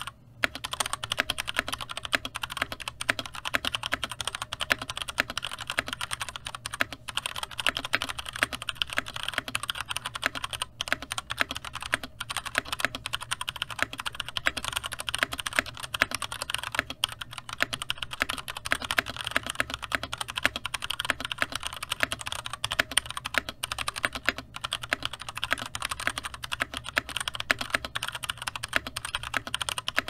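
Fast, continuous typing on a Mizar MZ60 60% mechanical keyboard in its stock state, with its factory tactile brown switches: a steady rapid clatter of keystrokes.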